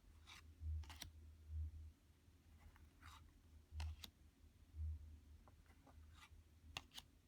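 Tarot cards being handled and turned over one at a time: faint brief swishes and light clicks of card stock, with soft low thumps every second or so.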